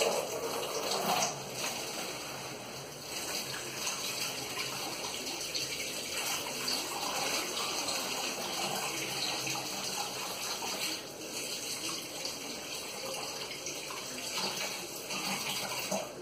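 Tap water running steadily into a container at the kitchen sink, with a couple of knocks near the start. The flow stops near the end.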